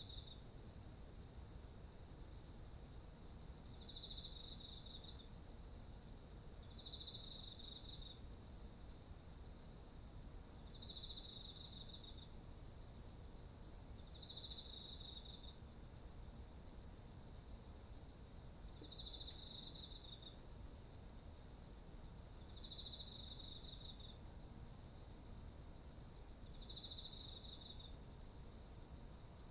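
Chorus of autumn insects, crickets, calling in a rice field: one very high trill runs on unbroken while a lower, fast-pulsing trill comes in phrases of two to three seconds with short breaks, and short chirps sit just below it.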